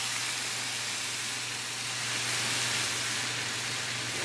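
Red wine being poured into a hot skillet of browned vegetables, sizzling with a steady hiss as it deglazes the pan. A faint low hum runs underneath.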